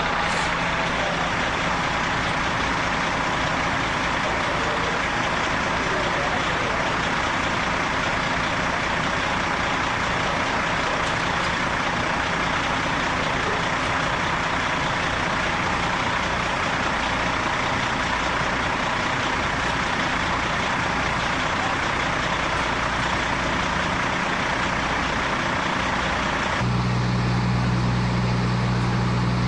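Fire apparatus engines running steadily with a loud, even hiss and drone. About 27 seconds in the sound shifts to a deeper, steadier hum with two strong low tones.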